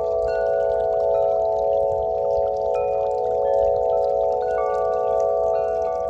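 A Corinthian Bells 50-inch wind chime tuned to the scale of A, ringing with deep, long-sustaining tones that overlap. The striker hits the tubes several times, adding fresh notes over the ringing.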